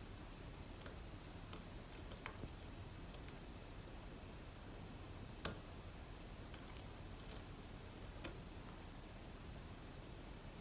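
Faint small metallic clicks and ticks of lock-picking tools and an Assa Abloy Arrow pin-tumbler lock being handled, with one sharper click about five and a half seconds in and another near eight seconds.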